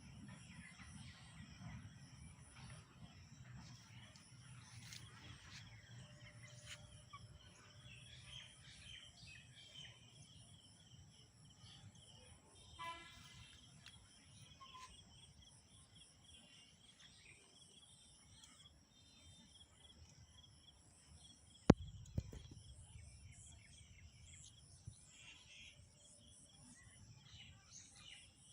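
Faint outdoor ambience of a steady, pulsing, high-pitched insect chorus. A short pitched call comes about halfway through, and a single sharp click about three-quarters of the way through.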